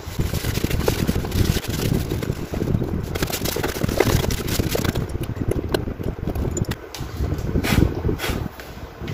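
Irregular clicks, knocks and scraping of oven parts being handled and fitted back together, over a low rumbling noise.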